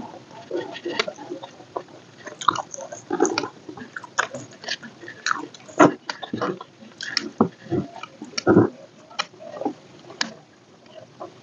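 A person chewing and biting food close to the microphone: irregular wet mouth smacks and crisp clicks, several a second, with a few heavier mouthfuls in the middle.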